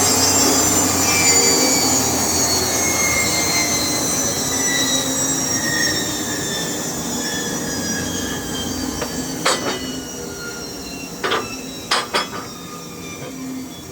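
A sawmill saw spinning down after a cut: a whine with several tones sliding slowly lower in pitch and fading. A few sharp knocks come near the end.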